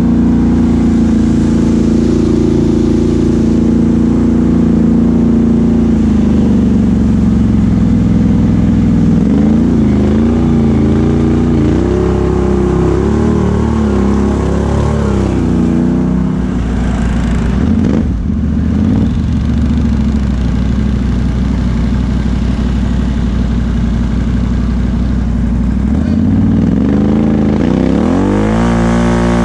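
2017 Can-Am Outlander XMR 1000 ATV's V-twin engine running under way through an aftermarket Big Gun exhaust. It holds a steady speed, drops off, then revs up and down several times, runs steady again, and revs up near the end.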